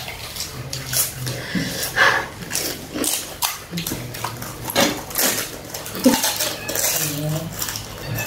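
Scattered clinks and crackles of crisp puri shells being poked open and handled over stainless steel plates and bowls, with a short click every so often.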